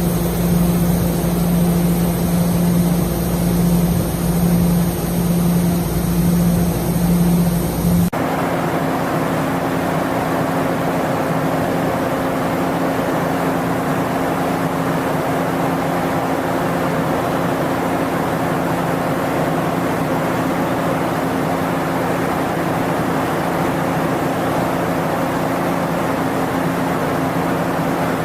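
Steady, loud machine drone: a low hum with high whining tones over a rumble, which cuts about eight seconds in to a different steady, rushing drone with a somewhat higher hum.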